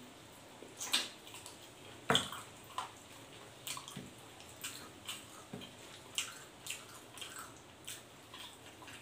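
Close-up mukbang eating sounds: wet lip smacks and mouth clicks of chewing roast pork leg, with fingers picking at the greasy meat, coming irregularly about once or twice a second.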